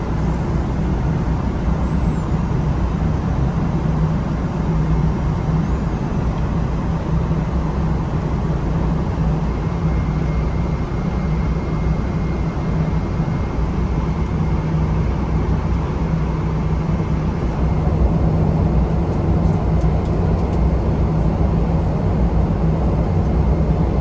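Steady drone of a jet airliner's cabin in cruise, engine and airflow noise heaviest in the low end with a constant hum.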